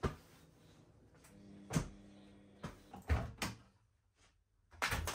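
A series of separate knocks and clunks, about six in five seconds, like household things being handled, with a faint steady hum for a second or two in the middle.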